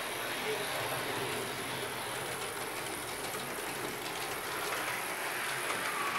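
Roco model of the TEE Lemano diesel train running along model railway track: a steady clatter of small wheels on the rails and points over the whir of its motor.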